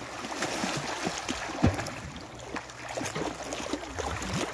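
Sea water splashing and sloshing as two children kick and swim in the shallows, a steady wash of many small irregular splashes.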